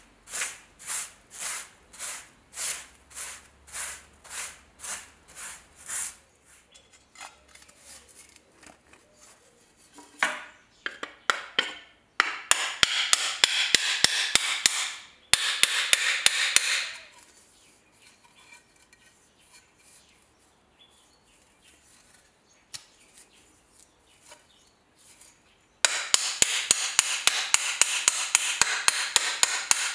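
A stiff brush sweeps wood shavings in about ten even strokes. Later come long stretches of harsh, dense noise with sharp, regular taps of a small hammer, about three or four a second, which are the loudest sounds.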